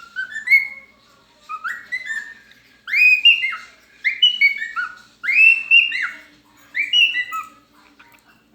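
A bird singing loud, clear whistled notes, many rising or bending in pitch, in short phrases with brief pauses between them.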